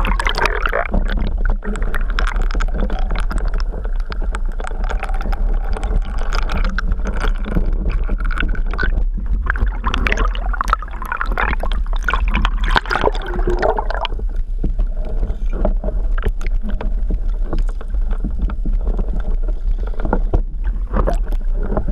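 Sea water sloshing and gurgling around a camera dipped in and out of the surface: a steady low rumble with many small clicks and pops.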